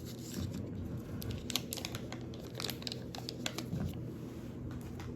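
Scattered light clicks and crinkling of hands at work in a kitchen while a quarter cup of butter is measured out. Under them runs a faint steady hum.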